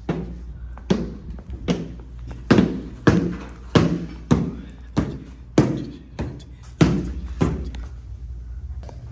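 A series of dull thuds, roughly one every two-thirds of a second, over a steady low hum; they stop about seven and a half seconds in.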